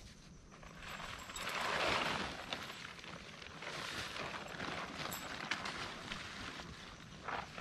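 Rustling and crinkling of a nylon tent being spread out and handled on the ground, swelling about two seconds in, with a few light clicks.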